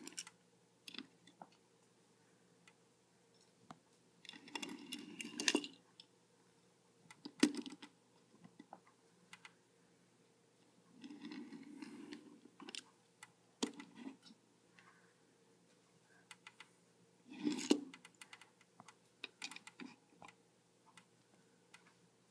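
Handling noises as small die-cast toy cars are swapped and set down on a tabletop: a few rustling bursts with sharp clicks and taps between them.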